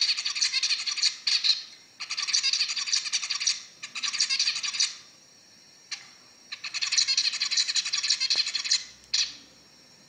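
Male zebra finch singing: three long runs of rapid, high notes with short breaks between them and a couple of short single notes, stopping a little after nine seconds in.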